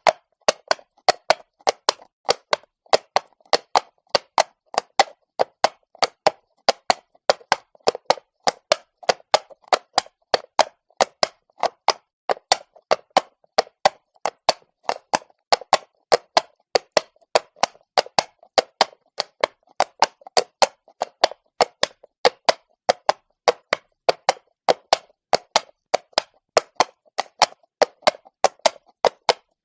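A horse's hooves clip-clopping at a walk on cobblestones: an even, unbroken beat of sharp knocks, about three a second.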